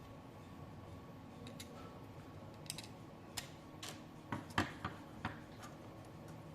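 About ten light clicks and taps of small drone frame parts being handled and fitted by hand. They are spread through the middle, and the loudest comes a little past halfway. A faint steady hum runs underneath.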